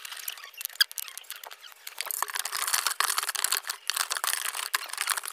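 Scattered clicks, then about two seconds in a dense scratchy crackle: a stick scraping and knocking inside a plastic water jug as shampoo is stirred into hydrogen peroxide.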